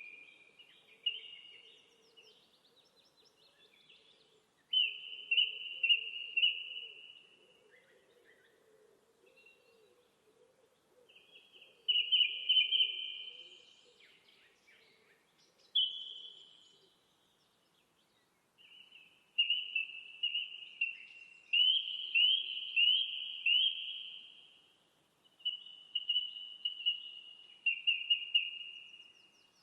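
A small songbird singing: short phrases of quick, repeated notes, each phrase one to two seconds long, repeated after brief pauses.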